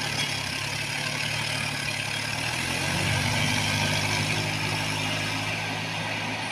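Diesel tractor engine working under load as it tows a trolley up a slope, being tested for pickup (pulling power); it grows a little louder about three seconds in.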